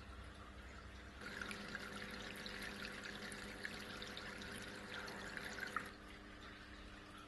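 Water trickling and splashing down the tiers of a multicolour slate cascade fountain, with many fine droplet splashes. It grows louder about a second in and drops back near six seconds, over a faint steady hum.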